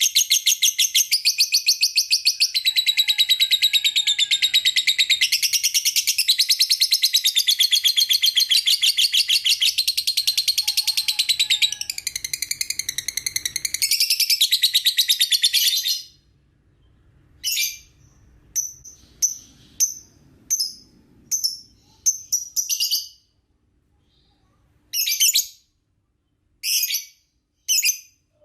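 Young lovebird giving a long, rapid, high-pitched trilling song for about sixteen seconds, which stops abruptly and gives way to short separate chirps.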